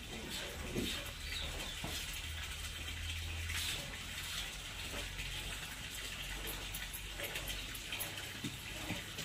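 Hand-milking a water buffalo: streams of milk squirting from the teats into a small vessel, a steady liquid spraying and splashing.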